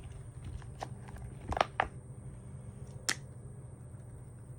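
Light clicks and taps of small plastic pop socket pieces being handled: two close together about a second and a half in, another about three seconds in, over a low steady hum.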